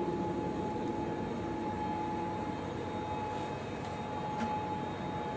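Steady whooshing hum of the International Space Station's cabin ventilation fans and equipment, with a constant mid-pitched tone running through it.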